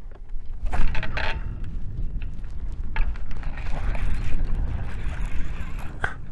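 Wind rumbling on the microphone and water lapping at a bass boat's hull, with a few sharp knocks about a second in, around three seconds and near the end.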